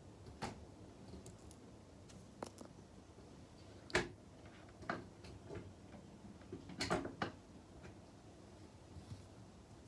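Scattered sharp clicks and small knocks of hard objects being handled, about eight of them. The loudest comes about four seconds in, and a quick cluster follows around seven seconds in.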